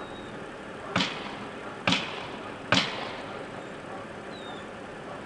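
Three sharp bangs a little under a second apart, each with a short ringing tail.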